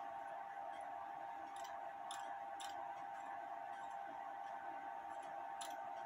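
A few light, sharp clicks from a Lux Pendulette clock's carved case and movement being handled and fitted together, over a steady faint hum.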